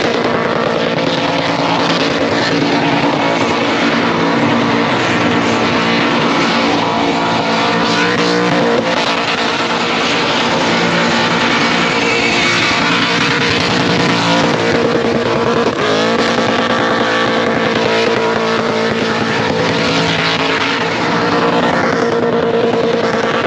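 Supercharged LS1 V8 held at high revs under sustained load, with supercharger whine over the engine note. The revs dip and climb again about two thirds of the way through and once more near the end.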